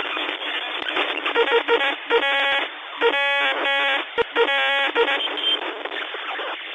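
Emergency alert broadcast audio: a radio-like hiss of static, with a series of short buzzy tone bursts about two to five seconds in.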